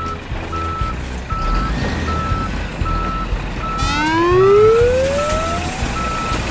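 Construction truck's reversing alarm beeping steadily at one pitch, about two to three beeps a second, over a low rumble. About four seconds in, a loud rising tone sweeps up over a second and a half.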